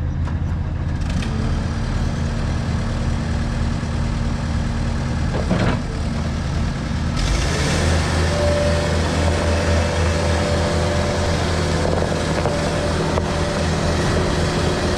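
2016 Case SV280 skid steer's diesel engine running steadily at low speed, then revving up about seven seconds in and holding at a higher speed.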